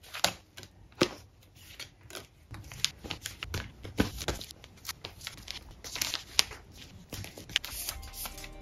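Photocards being slid out of the clear plastic sleeves of a photocard holder and dropped onto a desk: irregular plastic crinkling and rustling with many light clicks and taps.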